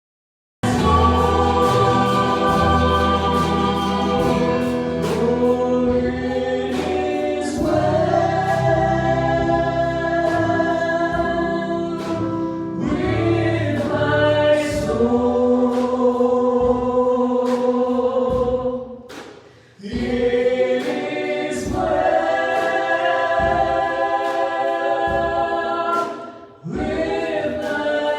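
Choir singing a gospel song with accompaniment, starting suddenly under a second in, with short breaks between phrases about two-thirds of the way through and near the end.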